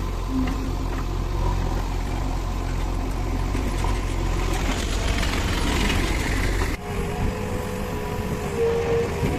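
Backhoe loader's engine running with a steady low rumble. About seven seconds in the sound changes abruptly to a higher, steadier hum with a few held tones.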